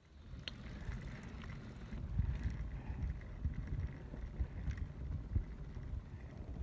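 Wind buffeting the microphone of a moving recumbent bike, a gusty low rumble, with a few sharp clicks scattered through it.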